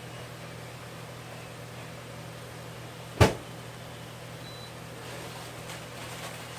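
A single sharp knock about three seconds in, over a steady low hum.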